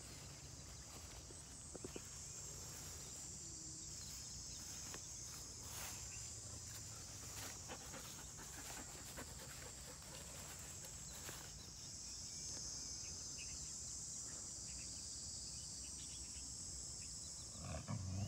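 Outdoor field ambience: a steady high-pitched hiss with a low wind rumble and faint rustles of dogs moving through grass. Near the end a dog gives a short low growl as the two dogs play-wrestle.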